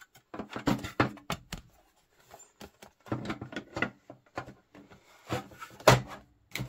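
Large pink plastic panels of a toy playset being handled and fitted together on a wooden table: a run of irregular plastic clicks and knocks, the loudest a knock near the end.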